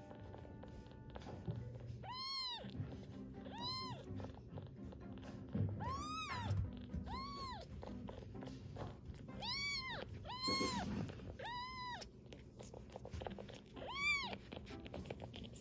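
A bottle-fed black kitten of about 200 g mewing: about ten short, high mews, each rising then falling in pitch, a second or so apart. The carer takes the kitten's calling as wanting attention and to be touched all the time.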